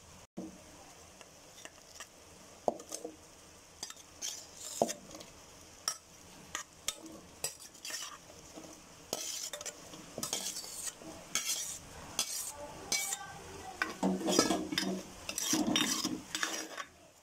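A spoon clinking and scraping in a pan of simmering masala as chopped vegetables are tipped in and stirred, with a light sizzle. Scattered clinks at first, then busier stirring from about nine seconds in, loudest near the end.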